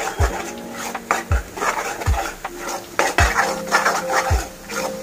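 A metal spoon scraping and knocking against an aluminium kadai as a thick masala paste is stirred and sautéed, with a knock about once a second.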